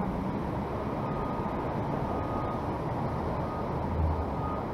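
Steady rumbling street and traffic noise, with a faint thin high tone coming and going and a brief low swell about four seconds in.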